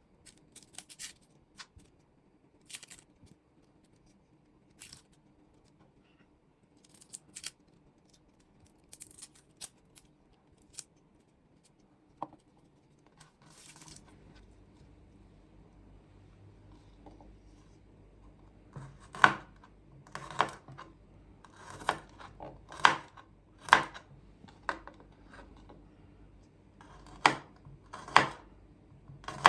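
Kitchen food-preparation handling: scattered light clicks and snips at first, then a low steady hum joins about halfway, and near the end come sharp cutting or scraping strokes about once a second.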